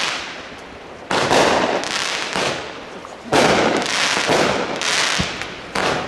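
Aerial fireworks going off three times, about two seconds apart. Each starts with a sudden bang, followed by a second or so of dense crackling that fades away.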